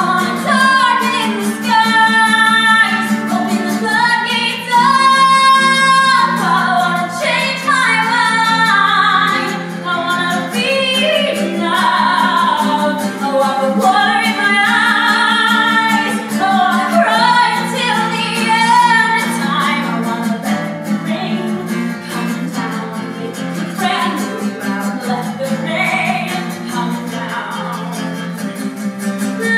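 A woman singing solo, accompanied by a single acoustic guitar.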